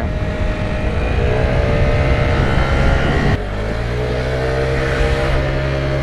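Motor scooter engine running as it rides along, the pitch climbing gently under throttle. About halfway through it drops abruptly to a lower, steady note.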